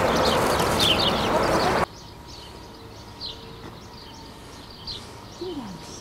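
Small birds chirping repeatedly in short, falling chirps. For the first two seconds a loud rushing noise lies under them and cuts off suddenly, leaving the chirps over a quiet background, with a short falling whine about five seconds in.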